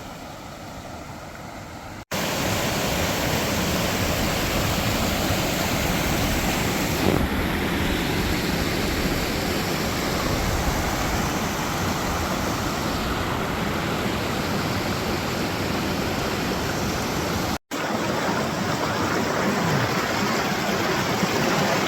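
River rapids rushing: a steady, even wash of white water. It is quieter for the first two seconds, then much louder after an abrupt cut, with a second split-second break near the end.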